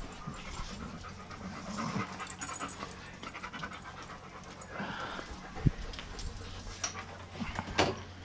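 German Shepherd dog panting, with scattered light clicks and a sharp knock about two-thirds of the way through.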